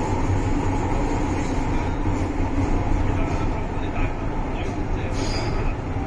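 Interior running noise of an MTR M-Train (Metro-Cammell electric multiple unit) travelling through a tunnel: a steady rumble of wheels on rail with a low hum, and a couple of brief clicks near the end.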